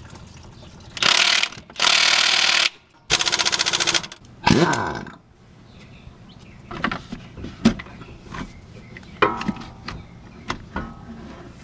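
Cordless DeWalt impact wrench hammering on a Honda V6's crankshaft pulley bolt with a 19 mm socket, in three loud bursts of rapid impacts, then a shorter burst that winds down. A few sharp knocks follow.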